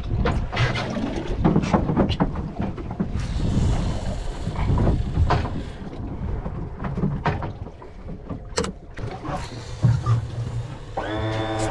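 Wind rushing over the microphone of a body-worn camera on an open fishing boat at sea, with irregular knocks and rustles from handling and movement. A short pitched sound comes near the end.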